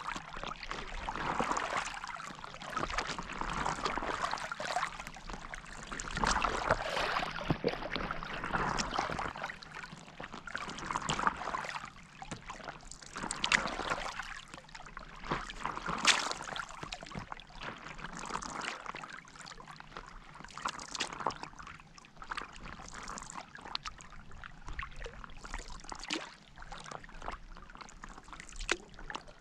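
Stand-up paddleboard paddle strokes in lake water: a splashing swish of water that swells with each stroke, roughly every two to three seconds.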